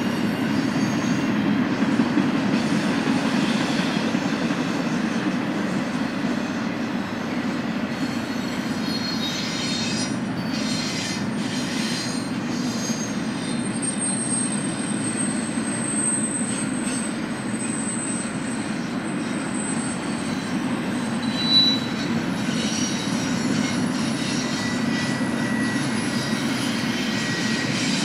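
Cars of a BNSF intermodal freight train rolling past, with a steady rumble of steel wheels on rail. A thin, high-pitched wheel squeal comes in about halfway through and lasts several seconds, with one brief knock a little after it.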